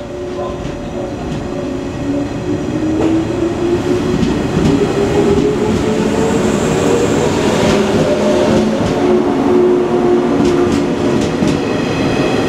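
JR West 115 series electric train pulling away: the whine of its traction motors and gears rises in pitch as it gathers speed, getting louder, with wheels clacking over rail joints as the cars pass.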